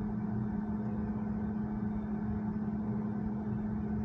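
Steady hum inside a Rivian electric vehicle's cabin, with one constant low tone over a soft rumble, as from the climate-control fans running.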